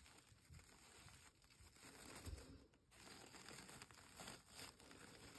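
Faint, irregular rustling and crinkling of a paper napkin being peeled open by hand around a dry seed pod.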